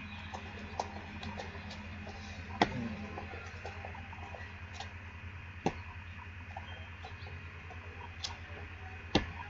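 Sharp taps of a person's shoes and hands landing on a concrete sidewalk during rapid shuffles and burpees, three louder ones about three seconds apart with lighter ticks between, over a steady low hum.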